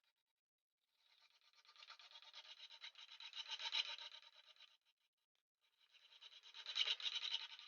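Quick, rapidly repeated hand scraping or rubbing strokes, like filing or sanding, in two passes with a short pause between them, the second pass louder.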